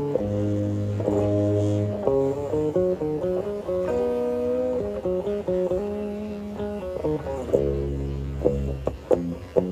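Instrumental music led by guitar, with held chords changing about every second over a bass line and a few sharp plucked notes near the end.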